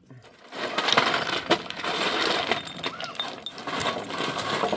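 Continuous scraping and clattering of hard objects, with a few sharp knocks.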